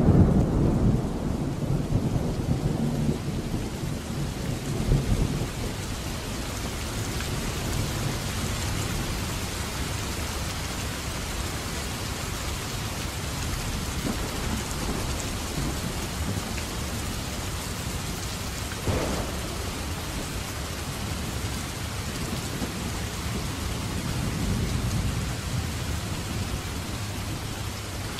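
Heavy downpour with thunder: a loud rumble of thunder at the start that dies away over the first six seconds, then steady pouring rain, with a fainter rumble of thunder a few seconds before the end.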